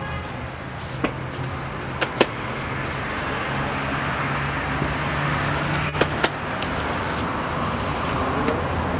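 Steady street background of traffic noise with a low hum, broken by a few sharp knocks: one about a second in, two close together about two seconds in, and two about six seconds in.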